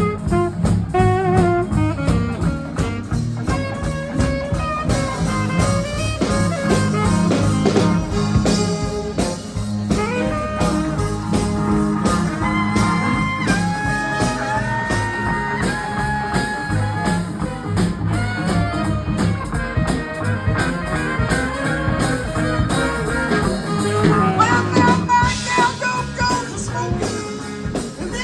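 Live swing band playing an instrumental passage: a lead instrument plays a melodic solo line over the rhythm section's steady beat.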